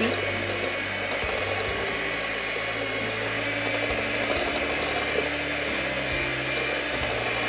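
Handheld electric mixer running steadily, its beaters whisking cake batter in a bowl; the motor's hum shifts slightly in pitch a few times.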